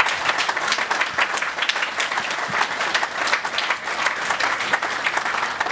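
Audience of several dozen people applauding, a dense, steady patter of clapping.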